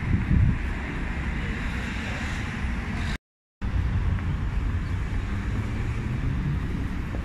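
Street traffic noise, a steady low hum of passing vehicles, with wind rumbling on the phone microphone, strongest in the first half-second. The sound drops out completely for about half a second just after three seconds in, then the same traffic hum resumes.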